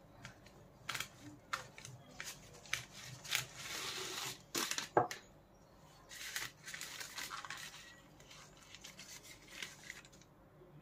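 A knife sawing through a roti flatbread on its paper wrapping, a run of short scraping, crackling strokes with the paper crinkling. After about six seconds the cut roti is pulled apart and lifted, rustling the paper.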